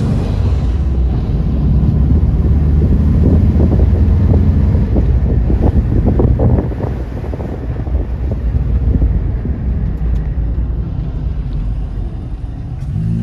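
Volkswagen bus's air-cooled flat-four engine running steadily while under way, heard from inside the cab with road and wind noise.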